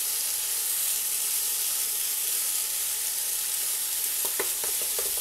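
Diced potatoes and poblano chile strips sizzling steadily in hot oil in a nonstick frying pan, stirred with a wooden spoon. There are a few light knocks near the end.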